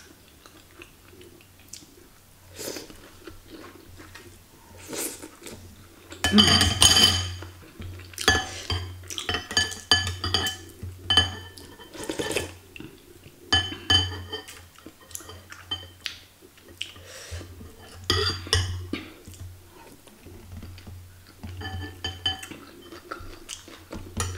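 Metal spoon and fork clinking and scraping against a glass bowl in many short, ringing clinks, with slurps of broth and chewing between them.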